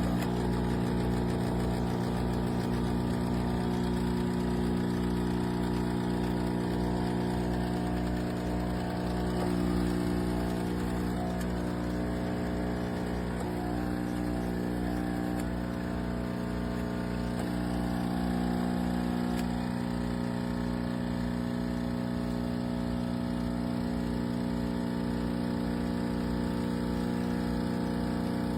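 AIRMSEN 20-bar espresso machine's pump running with a steady buzzing hum while brewing.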